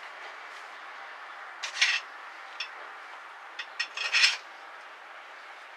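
Small metal parts being handled, with a few short, light metallic clinks and scrapes about two seconds in and again around four seconds in, over a steady faint hiss.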